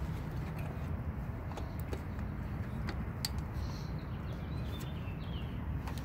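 Light clicks and taps of metal parts as a carburetor and throttle cable are fitted by hand to a small motorcycle engine, over a steady low rumble.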